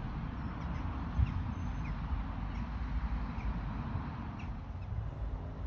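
Wind buffeting a phone's microphone in open country, a low fluctuating rumble, with faint scattered bird chirps above it. A single brief bump about a second in.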